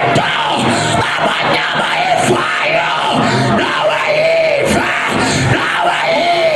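A church congregation's many voices shouting and calling out at once over music, loud and unbroken.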